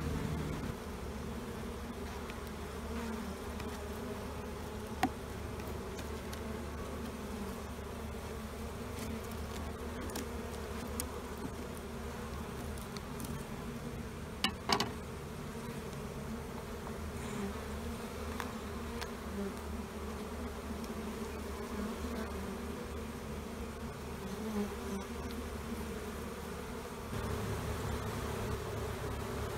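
Honey bee colony buzzing steadily, many bees flying around their exposed combs, with a few sharp clicks about 5 and 15 seconds in.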